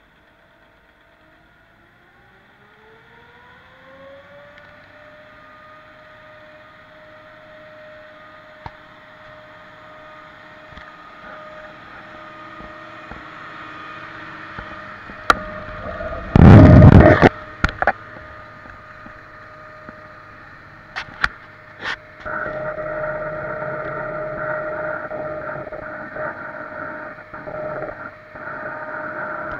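Tractor-driven Jaylor vertical mixer wagon starting up to mix a cattle feed ration. A drive whine rises in pitch over the first few seconds, then holds a steady running hum as the auger turns the forage. A loud clatter and a few sharp knocks come about 16 to 18 seconds in, and the churning grows louder and rougher after about 22 seconds.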